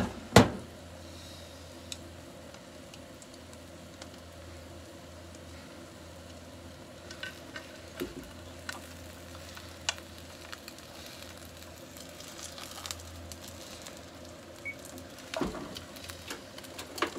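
Beaten egg with pork and cabbage frying in a frying pan, a steady sizzle throughout. A sharp knock about half a second in and a few lighter clicks later as chopsticks work the food in the pan.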